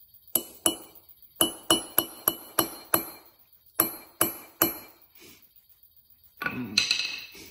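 Hammer striking a metal punch to dent a small copper piece on a steel block: about eleven sharp, ringing metal taps in three quick groups. A short rattling clatter follows near the end.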